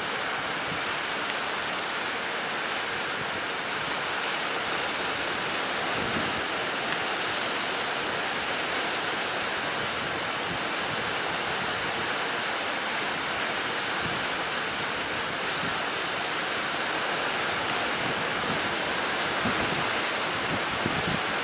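Steady rush of sea surf under a strong wind. There is no engine or other pitched sound.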